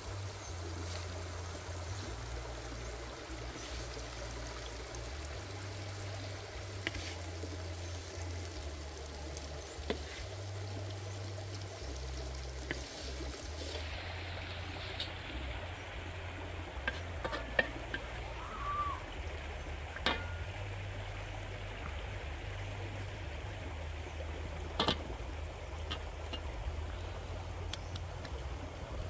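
A steady hiss with a low rumble under it, broken by a scattering of sharp metal clinks of a spatula scraping and scooping food out of a wok. The loudest clinks come about two-thirds of the way through.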